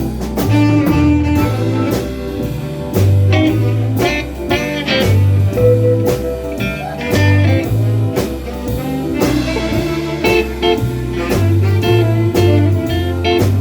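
Live blues band playing an instrumental break between vocal lines: a guitar lead over a pulsing bass line and drums.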